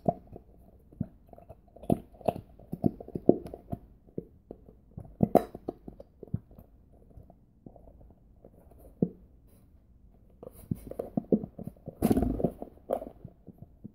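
A plastic bottle of Elmer's glue being squeezed into a plastic bowl, giving irregular small squelching pops and clicks as glue and air spurt from the nozzle. A louder cluster of knocks comes near the end.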